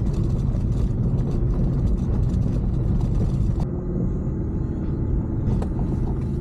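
A car being driven, its engine hum and road rumble heard from inside the cabin. About 3.7 s in, the hissing road noise drops away suddenly, leaving the steady low engine drone.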